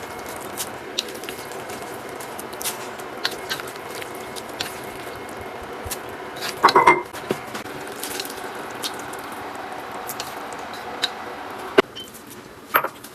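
Kitchen cooking sounds: a steady watery hiss with scattered small clicks, and a brief clatter of utensils against dishes or a pot about seven seconds in and again near the end.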